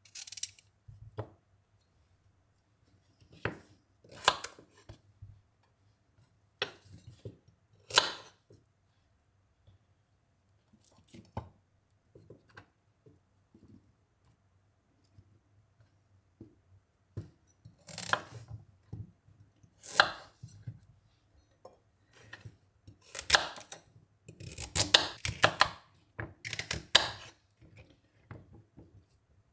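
Irregular short, sharp knocks and scrapes on a hard surface, coming in scattered clusters with pauses between them and growing busier and louder in the last third.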